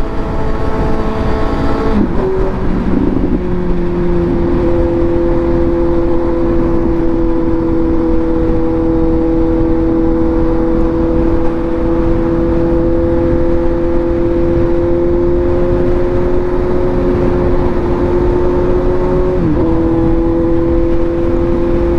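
Suzuki GSX-S750's inline-four engine running at a steady pitch while riding, with wind noise over it. Its pitch drops and resettles about two seconds in, and dips briefly and recovers near the end.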